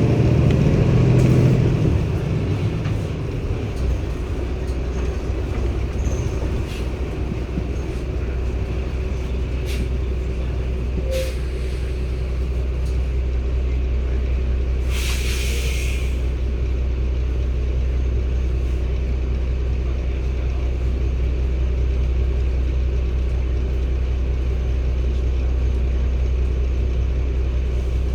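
Cummins ISB six-cylinder 280 PS diesel engine of a NEW BS090 city bus running with a steady low drone, heard from inside the bus; it is louder for the first couple of seconds, then settles. About halfway through comes a short hiss of air from the bus's air system.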